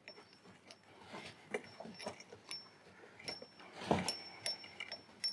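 Light metallic clicks and clinks of a pressure-tester hose fitting being threaded by hand onto the underfloor-heating manifold's 3/4 to 1/2 inch adapter, with a louder knock about four seconds in.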